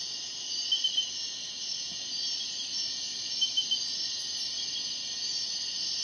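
Night-time rainforest insect chorus of crickets and katydids: a dense, steady, high-pitched trilling. Twice, about a second in and again about three and a half seconds in, a quick run of three short, louder chirps stands out.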